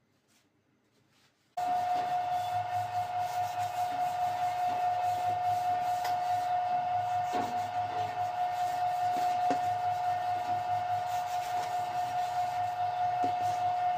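A steady machine whine with one constant high tone over a low hum, starting suddenly about a second and a half in, with a few light knocks.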